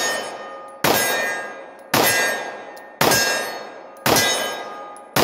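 Glock 21 .45 ACP pistol firing a steady string of single shots, about one a second, each sharp report followed by a ringing tail that fades before the next.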